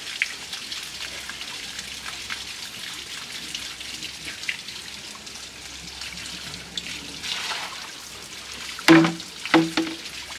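Water trickling and dripping, a steady hiss with scattered small drips and ticks. Near the end come two short, louder pitched sounds about half a second apart.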